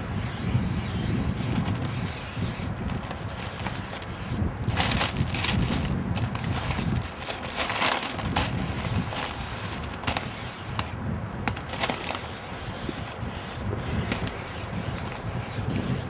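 Aerosol spray paint can hissing in short bursts as it is sprayed, over a low steady rumble.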